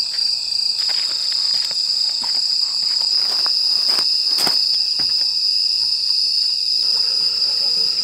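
A steady, high-pitched chorus of crickets and other night insects, with a few faint taps scattered through it.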